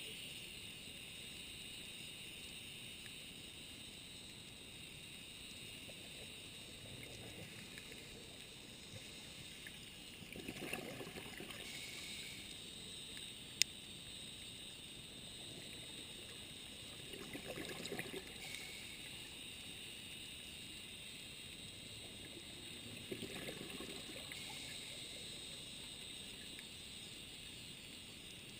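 Underwater ambience under a steady high hiss, with a scuba diver's exhaled regulator bubbles gurgling up in three bursts about six seconds apart, one breath cycle each. A single sharp click is heard near the middle.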